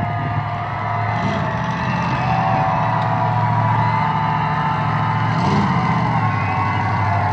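Several dirt-track race car engines running around the oval at once, their overlapping pitches rising and falling as the cars accelerate and ease off.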